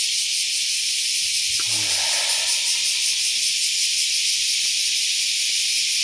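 A loud, steady chorus of summer cicadas, an unbroken high hiss with a fast pulsing in it. A brief lower sound comes through it about two seconds in.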